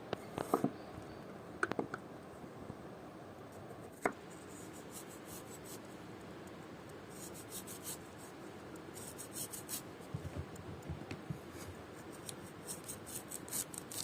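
Hand food preparation: a few sharp clicks and light knocks, then quick scratchy scraping strokes in small clusters.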